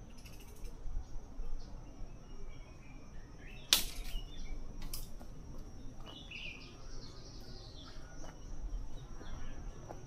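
Forest ambience: faint bird chirps over a low rumble and a steady thin high tone, with a sharp click a little under four seconds in and a lighter one about a second later.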